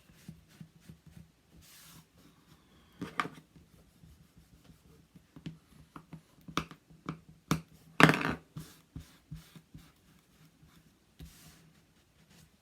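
Hands handling craft materials on a table: scattered light taps and knocks, the loudest a cluster about eight seconds in, with a brief rustle near two seconds and another near eleven.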